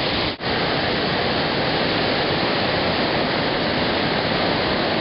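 Steady rushing water, a loud, even noise, broken once by a very brief drop-out just under half a second in.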